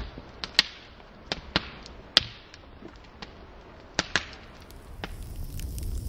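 Open wood campfire crackling, with sharp pops scattered through it, the loudest about half a second and two seconds in. A low rumble rises near the end.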